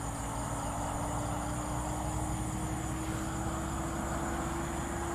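A distant engine running steadily, with a low hum whose tone rises slowly. Insects chirr steadily underneath.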